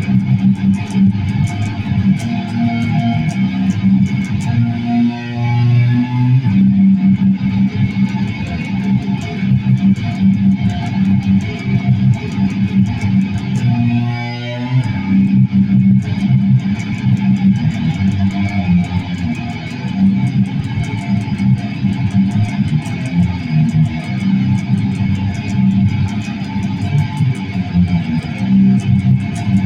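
Electric guitar playing continuously with quick picked notes, with a brief swooping, wavering sound about five seconds in and again about fourteen seconds in.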